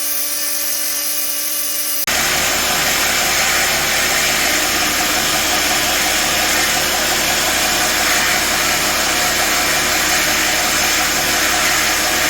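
Workshop power tools at work on the knife blank: a high-pitched motor whine that cuts off abruptly about two seconds in, replaced by a louder, steady grinding noise over a low hum.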